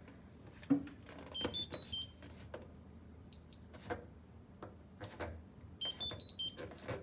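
Candy washing machine's program selector knob being turned, clicking through its positions with short electronic beeps, several in a row stepping up in pitch.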